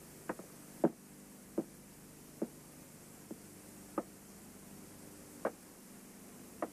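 Footsteps of a man pacing slowly: about eight short, sharp steps at uneven intervals, over a faint steady hum of old film sound.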